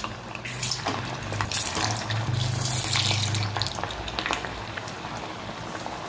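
A green pigeon pea (lilva) dhekra fritter deep-frying in hot peanut oil, just added. The oil sizzles and crackles steadily as it bubbles up around the fritter.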